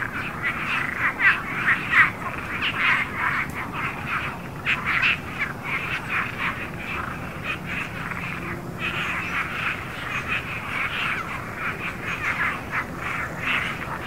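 A chorus of frogs calling: many short croaks overlapping in a dense, unbroken stream.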